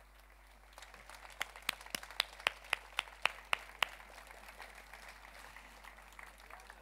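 Audience applause dying away, with a run of about eight sharp, evenly spaced claps close by, about three a second, in the middle.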